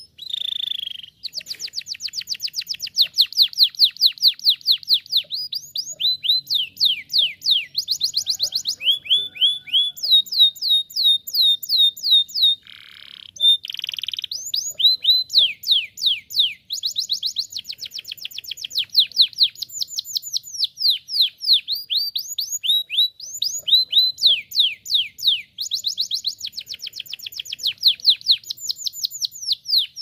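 Domestic canary singing a long, continuous song of rapid trills. Fast runs of repeated falling notes change from one trill to the next, with a brief break about halfway through.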